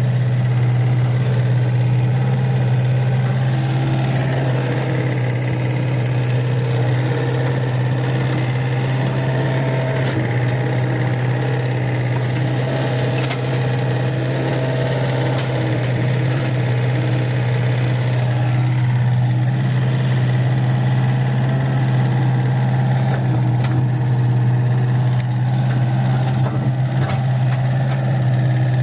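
Kobelco SK 50 P mini excavator's diesel engine running at a steady speed, a constant low hum with shifting fainter tones above it and a few clicks.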